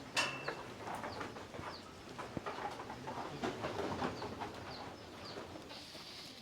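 Birds chirping in short, high, falling notes about twice a second, with some low cooing, and a sharp knock just after the start.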